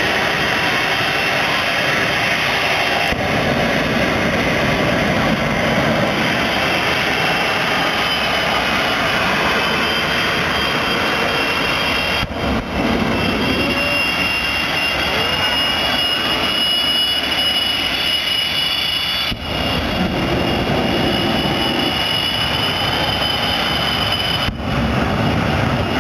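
Jet truck's turbine engine running loud and continuous: a rushing blast with a steady high whine over it. The sound drops out briefly three times.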